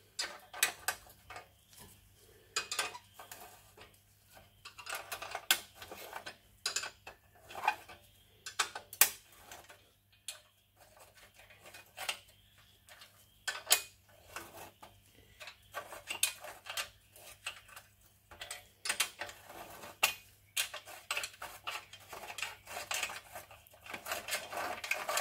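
Irregular metallic clicks and clinks of bolts and exhaust parts being handled as the exhaust is unbolted and lifted off a Briggs and Stratton 10 hp engine.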